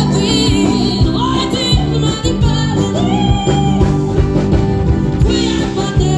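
Live band music: a singer's wavering voice over accordion, guitars, bass and a steady drum beat.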